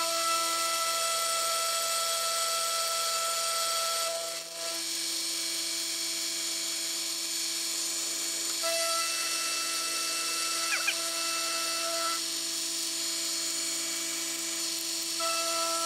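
Mini milling machine's spindle motor running with a steady whine as it takes a facing pass across hardened JB Weld filler on a small steam engine cylinder. The whine dips briefly about four seconds in.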